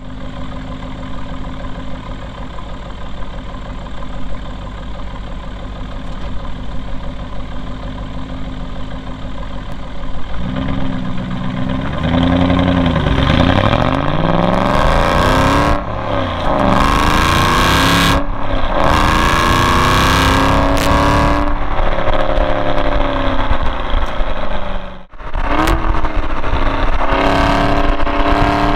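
Exhaust of a 2009 Aston Martin V8 Vantage's 4.7-litre V8, recorded right at the tailpipe. It holds a steady note for about the first ten seconds, then revs hard, its pitch climbing and falling with speed, broken by a few brief drop-outs, the deepest one near the end.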